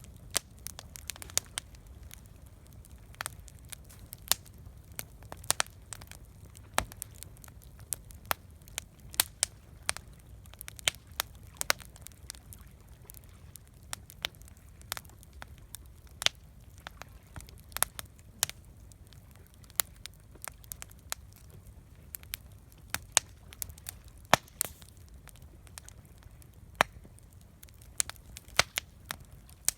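Campfire crackling, with sharp irregular pops, often several a second, over a steady low rumble.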